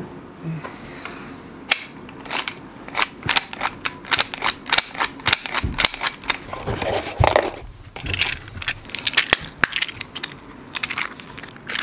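Quick, irregular sharp metallic clicks and rattles of a long gun being handled and its action worked, then a small box of cartridges rattling in the hands, with a few brief rustles.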